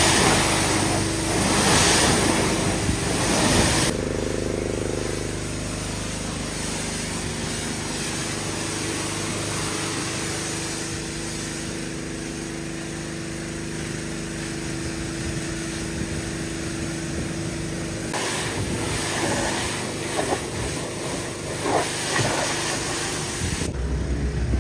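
Pressure-washer spray hissing against a truck's body for the first few seconds, then cutting off. A small engine keeps running steadily underneath. Scattered rustling and knocks come near the end.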